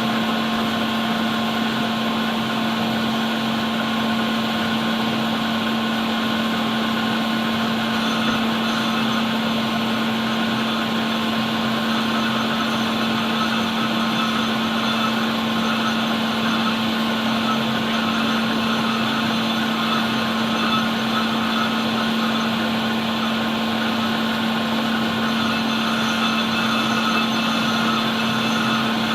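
Metal lathe running steadily with a carbide-tipped tool facing the cast steel mating face of a car flywheel: an even motor hum under a steady cutting hiss.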